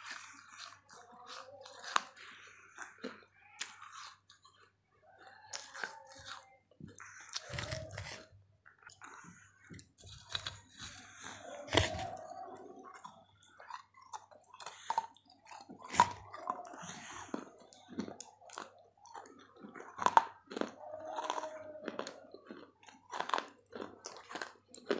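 Pieces of a baked clay matki (terracotta pot) being bitten and crunched close to the microphone: irregular dry cracks and chewing, with a few sharper, louder bites.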